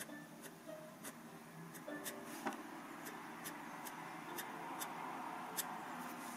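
Steel G-pen dip nib scratching on paper in quick inking strokes, with about a dozen sharp irregular ticks as the nib lands and flicks off the sheet.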